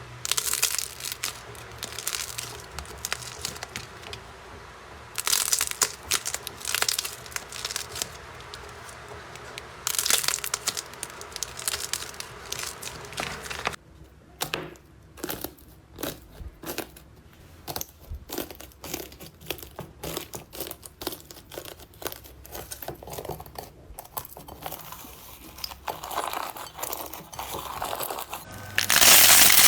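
Slime being squeezed and pulled apart by hand, giving crackling and tearing sounds. A dense stretch of crackling gives way about halfway through to a run of separate sharp pops and clicks, and it grows louder near the end.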